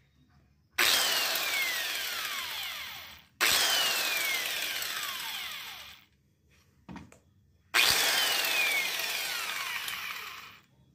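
Angle grinder fitted with a toothed wood-cutting saw blade, run free in three short bursts. Each starts suddenly, then its whine falls in pitch and fades over two to three seconds as the blade coasts down. A short knock comes between the second and third bursts.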